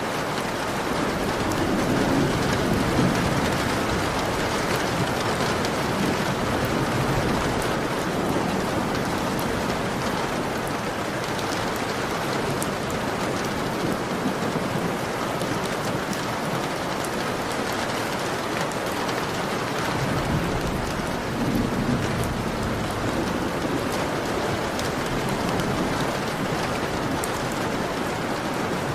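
Heavy rain pelting a window: a steady, dense hiss with fine ticks of single drops. Low rumbles swell up twice, about two seconds in and again around twenty seconds in.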